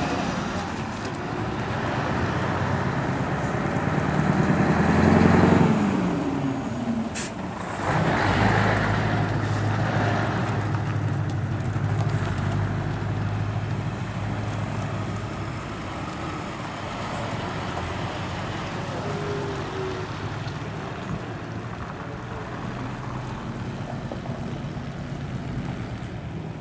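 Heavy diesel trucks driving past one after another. The engines are loudest about five seconds in, as one passes with its note falling, and a short sharp noise comes at about seven seconds. After that a steady low engine note slowly fades.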